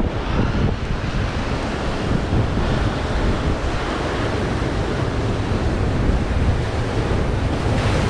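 Ocean surf breaking and washing over lava rocks, with steady wind buffeting the microphone in a deep rumble.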